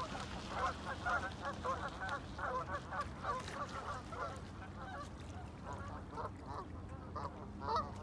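A flock of gulls floating on the water, calling in a busy chatter of short, squawking calls, several a second. The calling thins out past the middle, with one louder call near the end.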